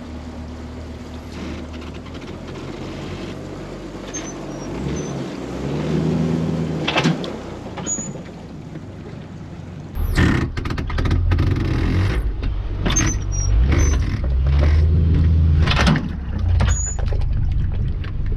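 The boat's outboard motor runs steadily as the boat is powered onto its trailer, the pitch shifting briefly about six seconds in. From about ten seconds it turns into a louder low rumble with a series of sharp knocks and clatter as the bow rides up the bunks into the bow-stop latch hitch.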